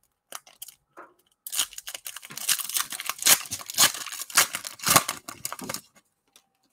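Plastic wrapper of a Prizm basketball card pack being torn open and crinkled by hand: a dense crackle lasting about four seconds that stops shortly before the end.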